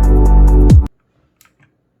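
Electronic background music with a heavy bass and falling bass sweeps, cutting off abruptly about a second in. A couple of faint clicks follow.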